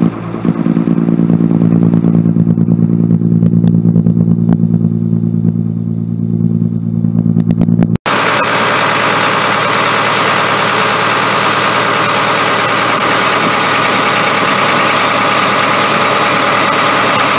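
Iveco diesel engine idling steadily, its oil filler cap off. After an abrupt cut about 8 s in, an engine runs louder and harsher, with much more hiss, in the fire pump's engine compartment.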